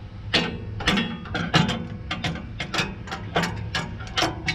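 Hand ratchet wrench clicking in short strokes, a few clicks a second, while a hydraulic line fitting is turned. A steady low hum runs underneath.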